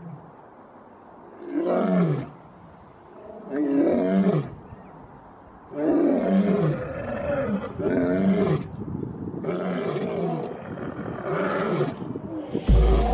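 Male lion roaring: a bout of about six loud roars, each about a second long, coming every one and a half to two seconds. Near the end a sudden loud low rumble cuts in.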